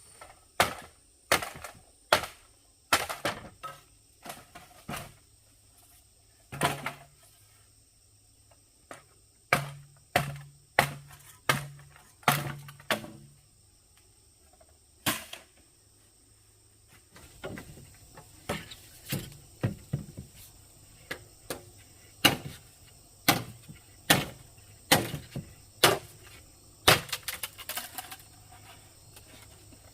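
An irregular series of sharp knocks and impacts, like work with hand tools, including a run of four evenly spaced duller thuds about a third of the way through.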